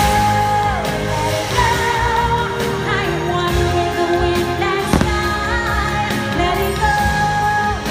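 A sung song with instrumental backing from a fireworks show's soundtrack, with long held vocal notes. A single sharp bang, a firework burst, comes about five seconds in.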